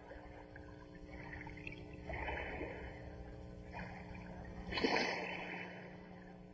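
Soundtrack ambience: a low steady drone under swells of rushing noise, the loudest about five seconds in.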